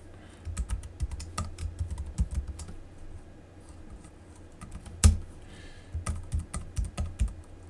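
Typing on a computer keyboard: clusters of quick keystrokes, a pause of about two seconds in the middle, one loud key strike about five seconds in, then more typing.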